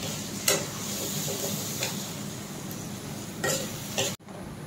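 Leafy greens sizzling in a hot pan while being stirred, with a few knocks of a utensil against the pan. The sound breaks off abruptly for a moment just after four seconds.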